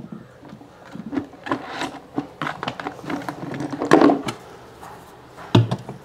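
Rough stones being handled and pressed into sand on the floor of a glass aquarium: irregular scraping and gritty rubbing with a few knocks, loudest about four seconds in.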